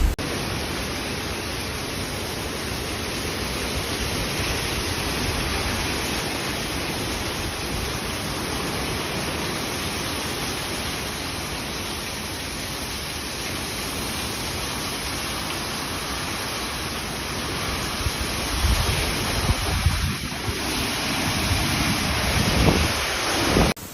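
Hurricane wind and driving rain: a steady rushing noise, with gusts buffeting the microphone in the last few seconds.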